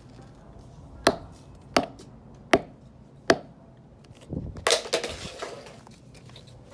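Four sharp snaps, a little under a second apart, then a longer, noisier burst with a low thump about four and a half seconds in.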